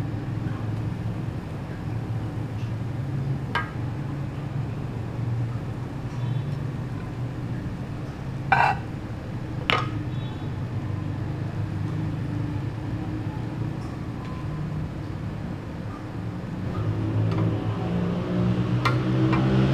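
A few separate clinks of a serving spoon against plates and the pot as rice is dished out, over a low steady hum; the two loudest clinks come about halfway through.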